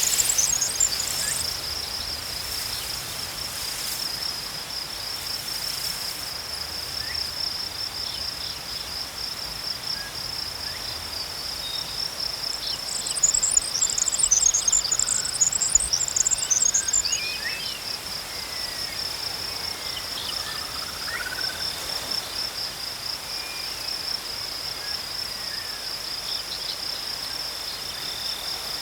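Crickets chirping in a steady, fast-pulsing high trill, joined by louder, higher-pitched chirping at the start and again for a few seconds around the middle. A few faint whistles slide up and down in the middle.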